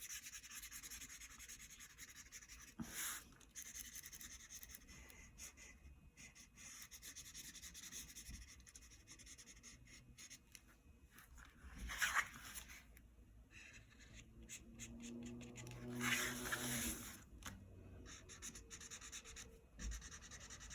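Felt-tip marker scratching and rubbing across paper in colouring strokes, faint, with a few louder scrapes.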